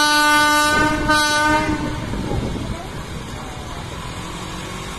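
Indian Railways locomotive horn sounding a long blast that ends just under a second in, then a second short blast. After that comes a steady rumble of noise as the train approaches.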